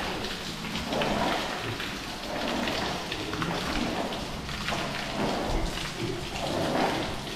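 Long-handled floor squeegee pushing water across a wet concrete floor, a splashy scraping sound that swells and fades with each stroke.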